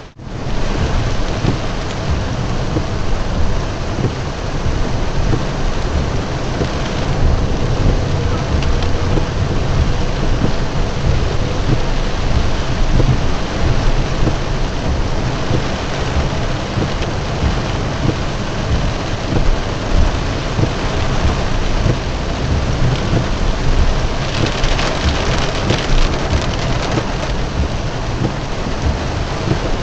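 Heavy rain pelting a car's roof and windshield, heard from inside the car: a dense, steady hiss over a low rumble, turning brighter for a few seconds about 24 seconds in.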